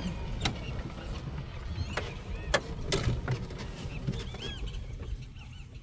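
Birds calling: short, arched chirps repeated again and again over a low rumble, with a few sharp clicks, the loudest about two and a half seconds in.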